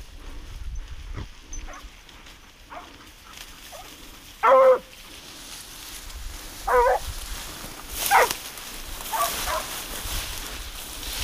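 Hunting dogs barking in single short barks a second or two apart, the loudest about four and a half seconds in.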